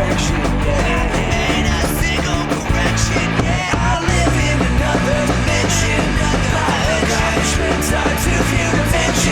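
Punk rock band recording playing at a loud, even level, with no clear singing.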